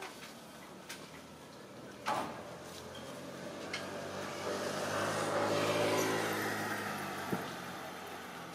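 A motor vehicle driving past, its engine hum and road noise swelling to a peak about six seconds in and then fading. A short sharp sound comes about two seconds in.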